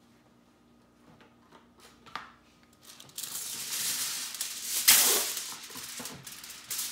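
Aluminium foil being pulled off the roll and torn off, crinkling and rustling loudly from about three seconds in, with the loudest crackle near five seconds.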